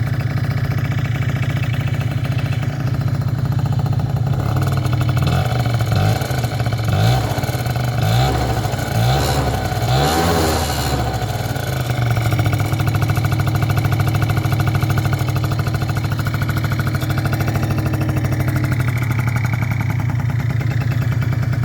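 Peugeot Elyseo scooter's single-cylinder engine running through a Technigas Next R aftermarket exhaust: idling steadily, then revved in several short blips around the middle, the loudest about halfway, before settling back to idle.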